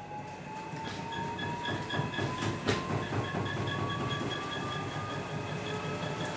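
Gorenje WNHEI washing machine speeding up into a spin with a load of soaking wet clothes. The motor's whine rises steadily in pitch over a heavy rumbling and rattling from the drum and cabinet.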